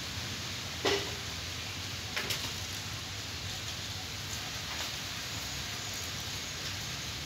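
Steady outdoor background hiss with a few short clicks: a sharp one about a second in, two more a second later, and a faint one near five seconds.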